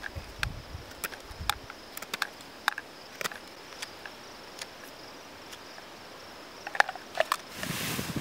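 Knife blade whittling a wooden stake: irregular sharp clicks as the blade bites and snaps off shavings, the loudest about seven seconds in, over a faint steady chirring of crickets. A brief rustle near the end.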